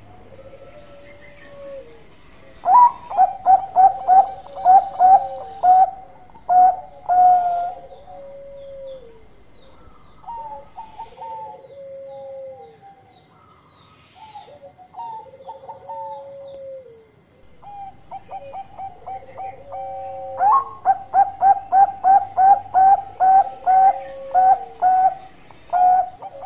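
Zebra dove (perkutut) singing: two bouts of fast, evenly repeated short coos, about three seconds in and again about twenty seconds in, each run ending in lower, drawn-out falling coos. Softer, scattered coos come between the bouts.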